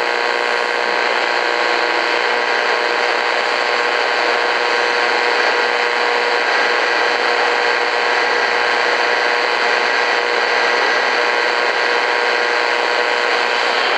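Shortwave static from an Eton FR250 radio's speaker, tuned off-station: a steady hiss with a few faint steady whistles and no voice coming through.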